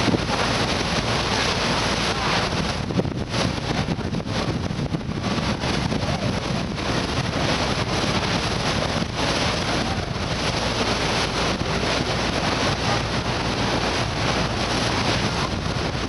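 Wind buffeting the microphone aboard a moving passenger motor ship, over the steady low drone of the ship's engine.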